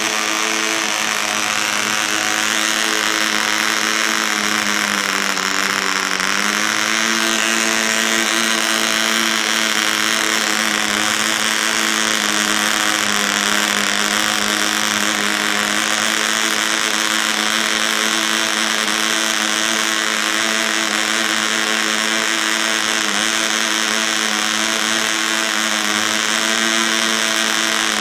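PAW 55 model diesel engine, a 0.55 cc compression-ignition engine, running steadily on a bench mount while being run in. Its pitch dips about five seconds in and climbs back up a second or so later.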